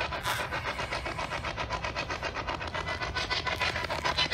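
Spirit box sweeping through radio frequencies, giving a rapid, even chopping of static, about eight pulses a second.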